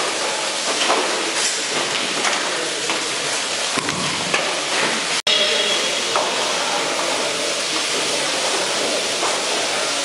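Steady hiss of water running and spraying onto squid at processing tables, with scattered light knocks and clatter. The sound breaks off for an instant about five seconds in.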